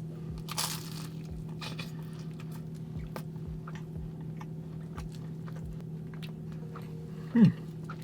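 Close-up biting into a crisp phyllo custard pastry (galaktoboureko) with a crunch about half a second in, then chewing with many small mouth clicks over a steady low electrical hum. Near the end comes a short vocal 'mm', falling in pitch, the loudest sound.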